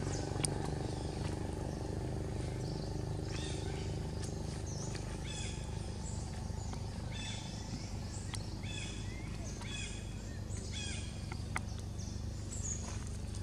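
A series of short, high chirping calls from an animal, repeated about once a second from about three seconds in until near the end, over a steady low rumble of background noise.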